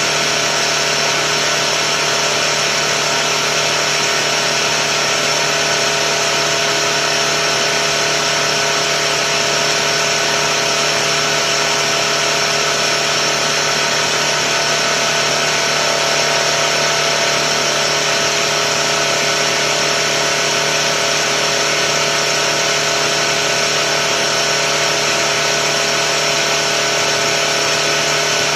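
Tuxing four-stage high-pressure air compressor running steadily as it pumps up a tank: a constant hum with a steady whine over it.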